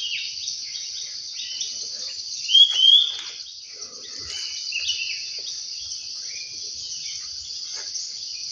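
Steady high-pitched insect chorus with birds calling over it in short chirps and rising whistles; the loudest are two rising calls about two and a half and three seconds in.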